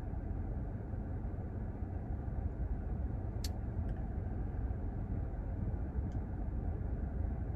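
Steady low rumble of a car heard from inside the cabin, with a sharp faint click about three and a half seconds in and a couple of fainter ticks later.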